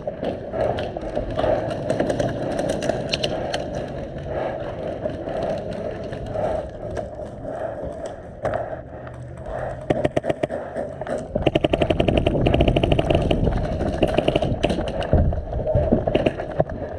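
Airsoft gun firing on full auto: a rapid, even rattle of shots in a burst of about three seconds past the middle, with shorter bursts earlier and near the end, over steady background noise.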